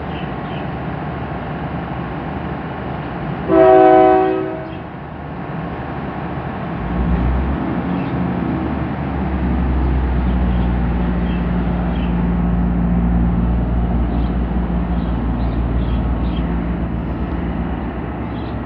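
SRT Daewoo diesel railcar sounds one horn blast of about a second, a chord of several tones. A few seconds later its diesel engines throttle up with a deep rising rumble that grows louder and holds as the train sets off from the platform.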